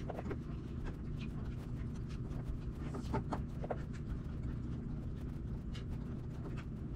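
Scattered light clicks and ticks of a hex driver and metal hardware as a shock absorber is fastened to the lower suspension arm of a 1/8-scale RC buggy, over a steady low hum.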